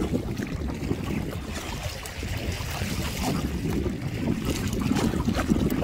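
Wind buffeting the microphone with a steady low rumble, over water splashing and slapping against an inflatable kayak pushing against a strong current, with scattered short splashes.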